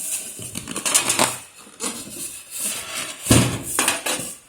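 Rustling, scraping and knocking of packaging as a PC case is handled and pulled from its box, with a heavier thump about three and a half seconds in.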